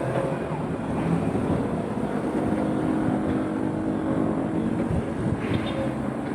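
Backhoe's diesel engine running steadily, a pitched engine note over a noisy mechanical rumble.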